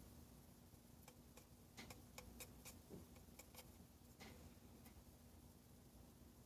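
Near silence broken by about a dozen faint, irregular clicks or taps, spread over a few seconds from about a second in.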